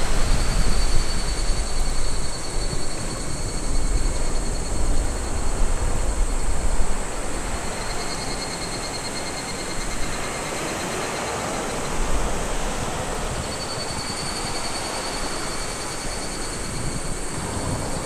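Small waves breaking and washing up a sandy beach, with wind rumbling on the microphone, heavier in the first several seconds and easing after.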